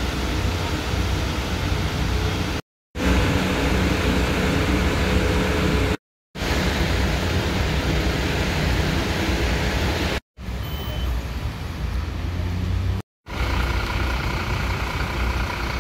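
Fire engines' diesel engines idling with a steady low rumble, amid street traffic noise. The sound breaks off into brief silences four times, between short clips.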